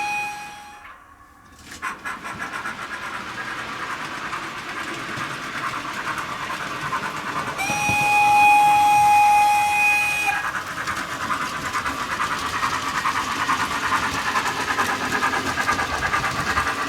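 Soundtraxx Econami steam sound decoder in an OO-gauge Hornby 9F model locomotive, playing its default sounds through a small sugar cube speaker. A steam whistle cuts off just under a second in; after a short lull the chuffing exhaust beats start up and run on, and a second steam whistle blows for about three seconds in the middle.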